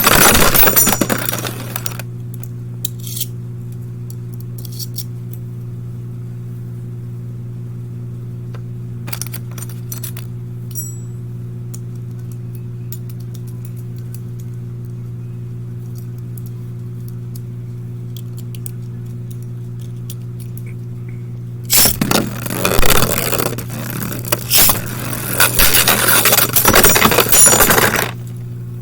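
Beyblade Burst spinning tops (Wonder Valtryek and Z Achilles) clashing and scraping in a plastic stadium. There is a short bout of rattling clatter at the start and a longer, louder bout from about two thirds of the way in until near the end. In between there is a steady low hum with a few small clicks.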